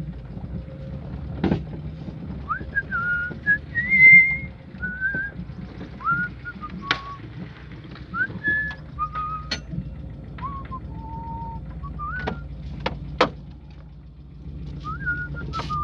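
A person whistling a tune in short separate notes, some sliding up, over the steady low rumble of a car driving on a dirt road, heard from inside the cabin. Occasional sharp clicks and knocks come through.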